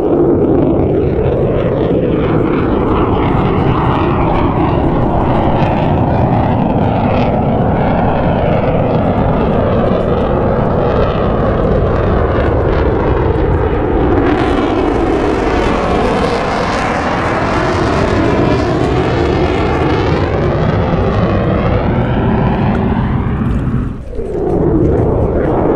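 Jet aircraft flying over, with loud, continuous jet engine noise. It grows fuller, with a sweeping, phasing sound, from about 14 to 22 seconds in as the jet passes closest. The noise dips briefly near the end, then picks up again.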